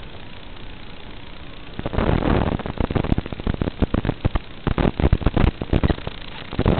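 Analog FPV video receiver's audio channel hissing steadily, then crackling with dense irregular static bursts from about two seconds in, as the 5.8 GHz video signal breaks up.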